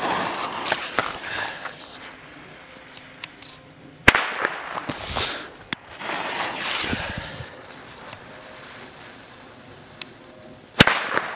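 Pyro Cracker firecrackers going off: one sharp bang about four seconds in, a fainter crack soon after, and another loud bang near the end. In between, footsteps crunch on gravel.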